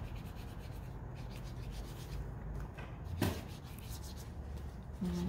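Pentel water brush rubbing and scratching across mixed-media watercolor paper in repeated short strokes as pigment is spread, with one sharp knock about three seconds in.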